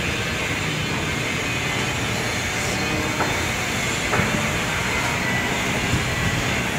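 Moving escalator heard while riding it: a steady mechanical rumble and hiss, with a couple of faint clicks a little past the middle.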